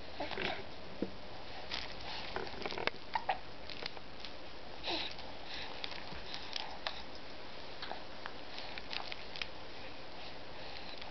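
A young baby's small snuffling breaths and mouth noises as it brings its hands to its mouth, with scattered soft clicks and rustles from its movements on a play mat.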